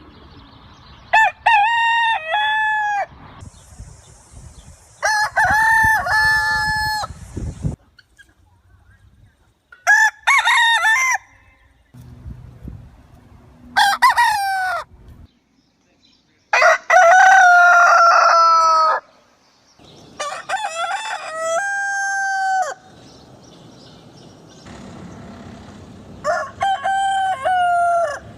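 Roosters crowing, about seven separate cock-a-doodle-doo calls one after another, each a second or two long with a drawn-out final note. The background behind each crow changes, as from separate recordings strung together.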